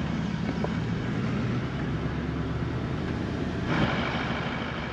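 Toyota Land Cruiser 79's V8 engine droning steadily under road noise while driving. A brighter hiss of tyres and wind joins about three and a half seconds in.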